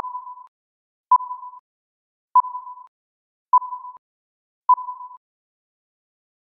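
Countdown beeps of a film-leader style intro: five short beeps at one steady pitch, a little over a second apart, each starting sharply and fading quickly.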